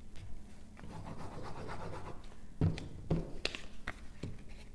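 Hands gluing cardstock squares onto paper: a scratchy rubbing on the paper for about a second and a half, then a handful of sharp light taps and knocks.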